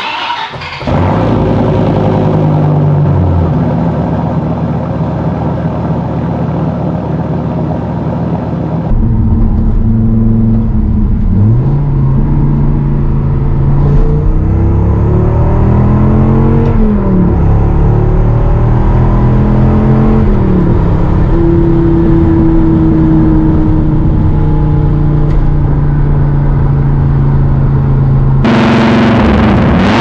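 A 1999 Dodge Viper RT/10's 8.0-litre V10 with cat delete and aftermarket cat-back exhaust starts with a loud bark and idles, its idle settling lower after a few seconds. Then it is heard driving, pitch climbing under throttle and dropping at each gear change, first from inside the cabin and near the end from behind the car at the exhaust.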